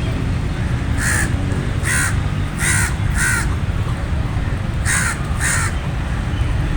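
A crow-family bird cawing: six short, harsh caws, some in pairs, about half a second to a second and a half apart, over a steady low rumble.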